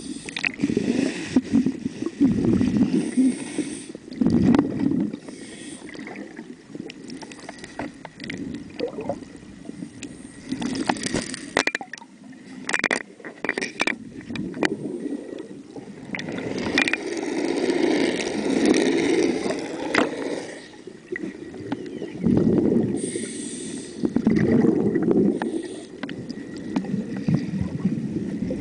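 A scuba diver breathing through a regulator, heard underwater: slow cycles of a hissing inhale and a long bubbling exhale, with a few sharp clicks around the middle.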